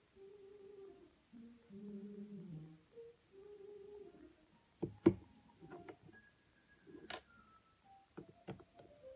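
A person humming softly in short phrases, then a few sharp clicks and taps from the camera body and tools being handled, the loudest about five seconds in.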